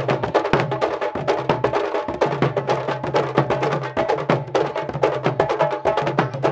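Candombe drumming: a group of tamboriles, hand-and-stick drums, beating a fast, dense rhythm of sharp strikes.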